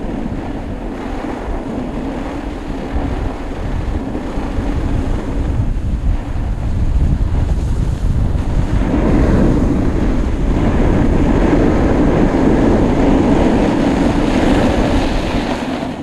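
Wind buffeting the camera microphone while riding down a groomed ski run at speed, a steady rushing noise that grows louder about eight seconds in as the rider picks up speed.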